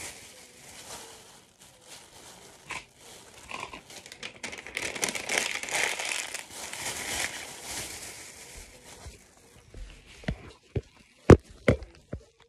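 Plastic trash bags and papers crinkling and rustling as they are handled, in irregular spells that are loudest in the middle. Near the end come a few sharp knocks, the loudest about 11 seconds in.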